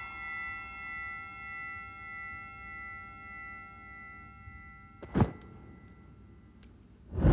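Several steady tones ringing together and slowly fading away, then a sharp whoosh about five seconds in, followed by a few faint ticks; designed sound effects.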